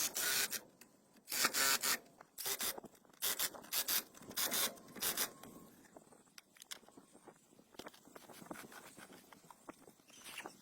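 A run of rubbing or scraping strokes on a surface, one or two a second, that stops about halfway through and leaves only faint scattered ticks and taps.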